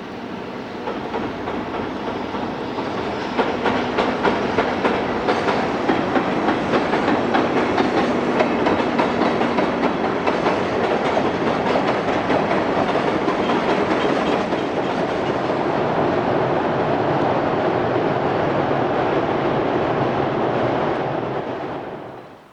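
A train passing close by, its wheels clacking rapidly over rail joints. The sound builds over the first few seconds, runs steadily, then drops away sharply near the end.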